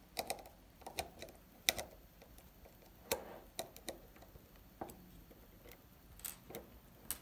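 Scattered light clicks and taps of hand tools and screws on a metering pump, irregular and sharp, as the pump head's screws are taken out to remove the head.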